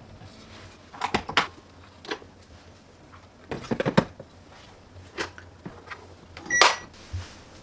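Inner pot of a Cuckoo Twin Pressure rice cooker clunking and knocking as it is handled and seated in the cooker body, in several separate clusters of knocks. Near the end the lid is pressed shut with a loud click that rings briefly.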